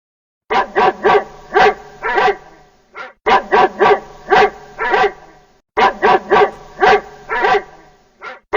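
Dog barking in three runs of several quick barks each, with short pauses between the runs.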